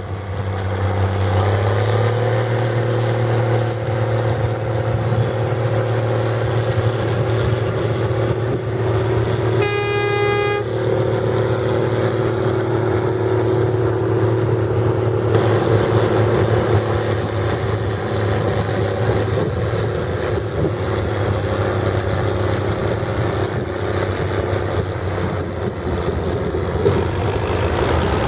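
International 1455 XL tractor's six-cylinder diesel running steadily through a straight stainless exhaust pipe, its pitch rising a little about a second and a half in. About ten seconds in, a horn sounds once for about a second.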